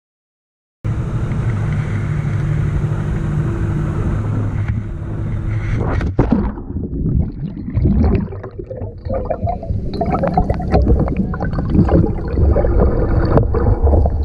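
Muffled underwater rushing and gurgling picked up by a camera on a spear pole, starting after about a second of silence. A sharp knock comes about six seconds in, followed by choppy splashing as a speared mullet thrashes at the water's surface.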